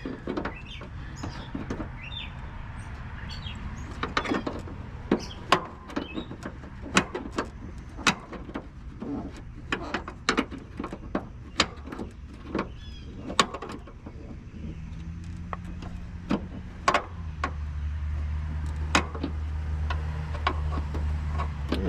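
Irregular sharp clicks and knocks of a wrench working a stuck fastener on a plastic running-light housing, about one or two a second; the fastener turns but will not back out, its plastic threads stripped, he thinks. A low steady hum comes in about two-thirds of the way through.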